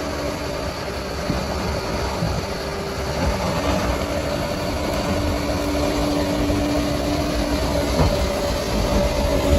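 Bulldozer's diesel engine running steadily, slowly getting louder.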